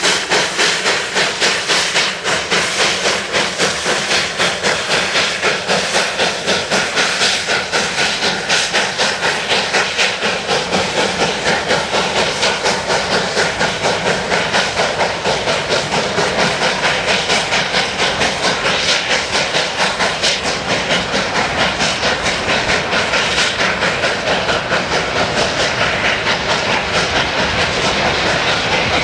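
Cumbres & Toltec K-36 steam locomotive 487 working hard under way, its exhaust chuffing steadily at about two to three beats a second over a constant hiss of steam, the beat quickening slightly toward the end as the train gathers speed.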